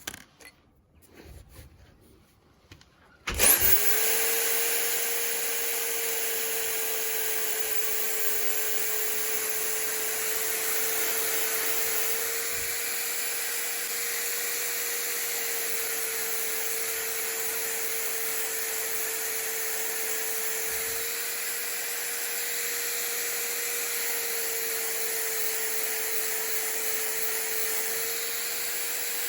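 Power tool spinning a diamond core bit that grinds steadily through hard porcelain tile, starting suddenly about three seconds in after a few faint clicks. It holds a steady whine at one pitch over a gritty hiss.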